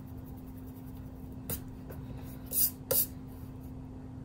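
Short scratchy strokes of a rubber eraser and pencil on drawing paper: one light stroke about a second and a half in, then two louder ones close together about three seconds in, over a steady low hum.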